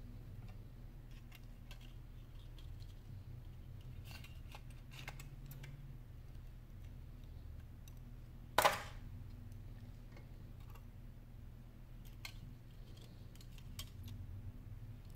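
Faint, scattered clicks and taps of small parts of an iPhone 7 display assembly being handled, with one sharper, louder click just past the middle, over a steady low hum.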